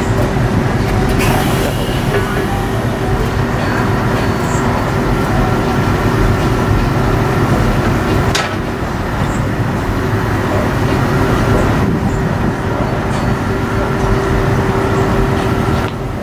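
Steady low engine rumble with a constant hum, and a few short clicks.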